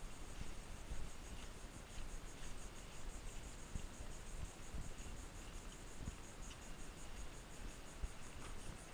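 A steady, high insect chorus with a fast pulsing trill, faint but continuous. Soft thuds of footsteps on the wooden boardwalk come about once a second.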